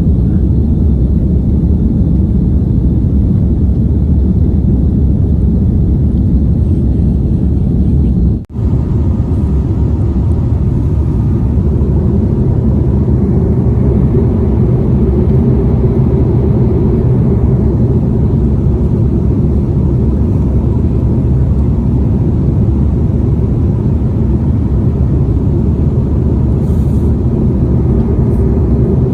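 Steady low rumble of a passenger airliner's engines and airflow, broken by a brief drop-out about eight seconds in.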